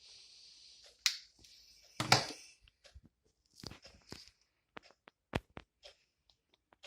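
Handling noises: a soft hiss, then a sharp click about a second in and a louder knock a second later, followed by scattered light clicks and taps.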